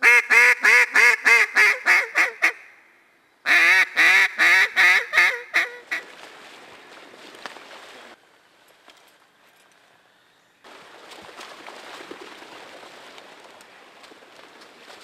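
Mallard duck call blown by a hunter: two fast runs of about ten loud quacks each, the notes tapering off at the end of each run. A softer rushing noise follows after a few seconds.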